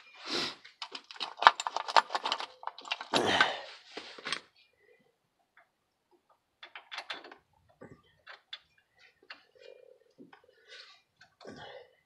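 Metal clinking and clattering from hand tools and hub hardware while a front wheel hub assembly is worked into place. A dense flurry of rattling clicks comes first, then after about four seconds it thins to scattered light clicks and small knocks.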